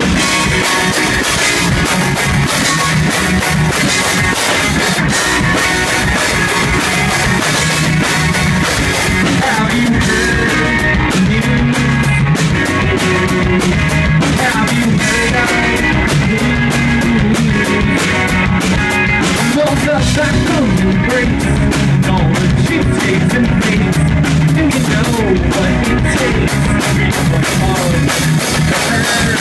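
Live rock band playing loud: electric guitars over a drum kit, one continuous passage with a steady beat.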